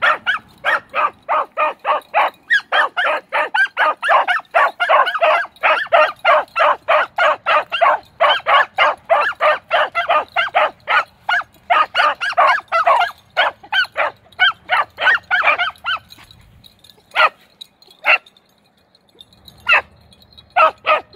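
Beagles giving tongue on a rabbit trail: fast chop-mouth barks and yips, several a second, thinning after about sixteen seconds to a few single barks.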